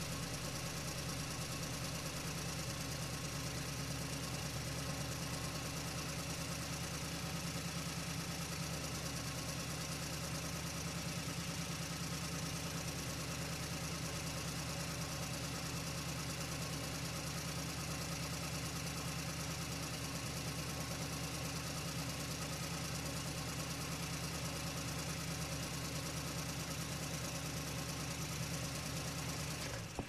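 Truck engine running steadily, a low even pulsing drone that holds one pitch with no revving.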